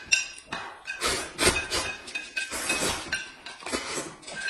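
Chopsticks clinking and scraping against a plate as food is shovelled off it into the mouth, several quick strokes a second, mixed with eating noises.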